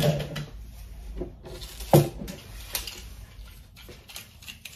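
Scattered knocks and clicks of small household objects being handled and set down, with one sharper knock about two seconds in.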